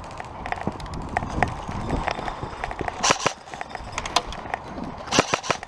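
Running footsteps on a hard floor with gear rattling, and many short sharp clicks and knocks; two louder clusters of knocks come about three and five seconds in.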